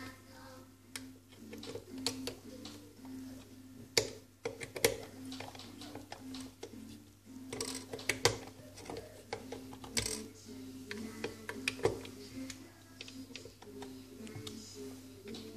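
Sharp clicks and knocks of hands and tools handling the plastic and metal internal parts of an opened Krups espresso machine, the loudest about four, five, eight and ten seconds in. Under them runs faint background music with a simple stepping melody.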